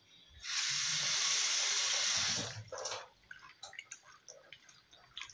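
Kitchen tap running for about two seconds, then stopping, followed by small scattered splashes and drips as diced raw chicken is rinsed by hand in a plastic bowl.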